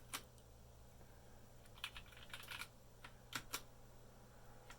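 Key presses on an RK61 mechanical keyboard with Gateron Brown switches, cycling through its RGB lighting modes. There are a few separate clacks and a quick run of them just after two seconds in.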